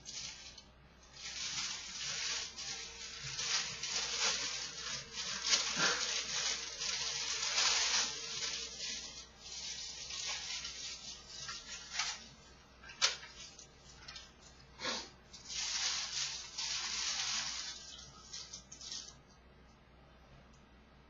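Clear plastic packaging bag crinkling and rustling as it is handled and pulled open, in uneven stretches with a few sharp crackles, dying down near the end.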